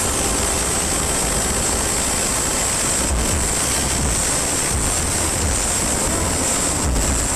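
Loud, distorted wash of noise with irregular low bass thumps: the giant speaker stacks of a sound horeg sound system overloading the microphone.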